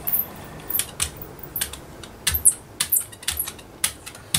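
Small craft items being handled on a table: a string of irregular light clicks and taps.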